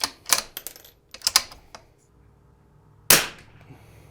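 A .22 LR bolt-action rifle: a quick series of sharp metallic clicks as the bolt is worked, then a single shot about three seconds in.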